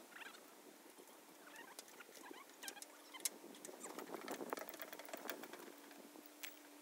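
Faint scattered clicks and knocks of footsteps and handling on a floating dock, busiest about halfway through as a person climbs onto the deck and steps off onto the bank, over a faint steady hum.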